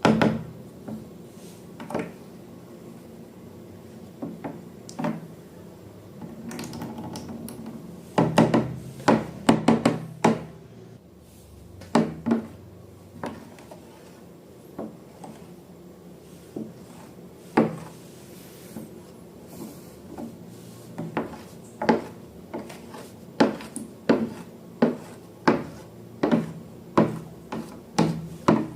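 Repeated sharp knocks and taps of objects handled on a hard surface: a cluster of quick knocks about a third of the way in, then a fairly regular run of one or two a second toward the end.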